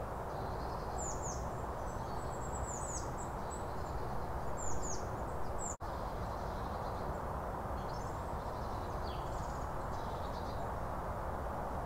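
Small woodland birds chirping and singing in quick, high, falling notes over a steady background rush. The audio drops out for an instant about six seconds in.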